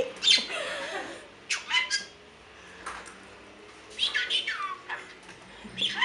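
Pet budgerigar chattering and squawking in short, sharp bursts, several calls sliding down in pitch.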